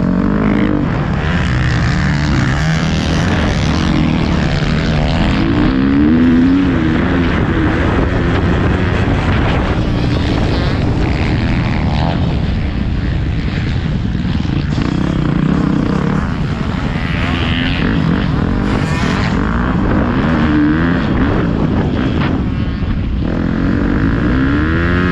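Motocross bike engine heard from the rider's helmet camera, revving up and down again and again as it is ridden around the track.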